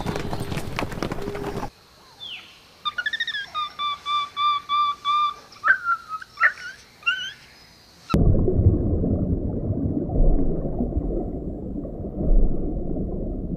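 Hooves of a herd of galloping horses drumming on dry ground, which stop abruptly after about two seconds. Then a spider monkey calls: a quick string of short whistled notes on one pitch, with a few squeaks. From about eight seconds a muffled underwater rumble takes over.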